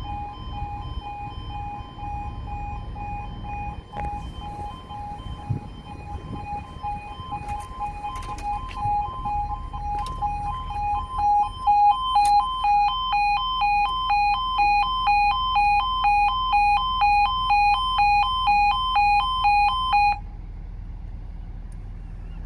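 Railway level crossing's two-tone warning alarm pulsing rapidly while the crossing closes. It grows louder about halfway through as the barriers come down, then cuts off suddenly a couple of seconds before the end once they are down.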